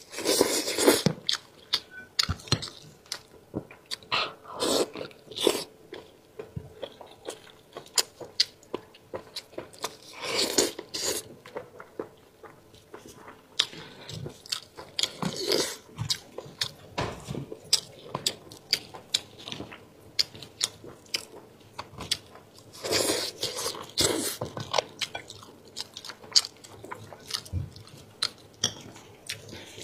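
Close-up eating sounds: chewing and biting braised spicy sheep's head meat, with many small wet clicks and smacks and several louder noisy bursts a few seconds apart.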